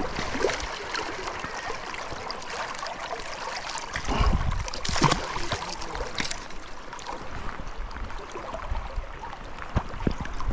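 River water rushing and splashing, with sharp splashes from a hooked fish thrashing at the surface close by. A heavier low rumble and splashing comes about four to five seconds in.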